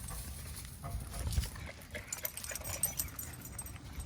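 Dogs on a walk: faint dog noises with scattered light clicks and scuffs.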